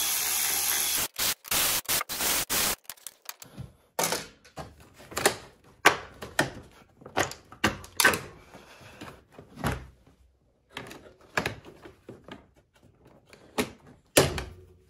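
Cordless electric ratchet running briefly as it spins out small 8 mm bolts, then a run of irregular knocks and clacks as a snowmobile body panel is worked loose and pulled out by hand.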